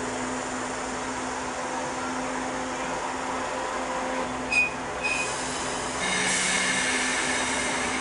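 Tobu 5700-series electric train standing still, heard from the cab: a steady hum, two short high beeps a little past halfway, and a louder hiss with a faint whine from about six seconds in.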